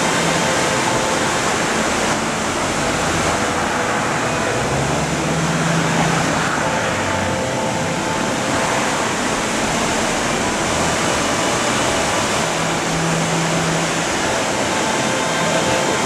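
Steady rushing of a cascade: white water pouring over boulders, an even wash of noise at constant loudness.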